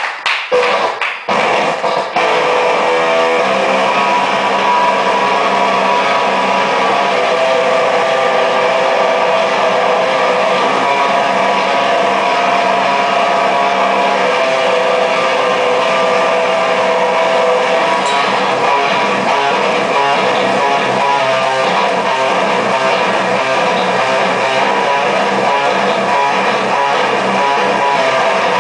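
Live rock band with electric guitars and a drum kit: a few separate hits, then the full band comes in about two seconds in and plays on loudly, with a thin low end.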